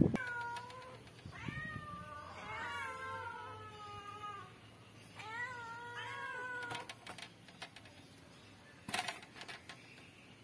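Domestic cats meowing repeatedly to be fed: about five drawn-out meows in the first seven seconds, some overlapping. A few clicks follow, then a brief noisy burst about nine seconds in.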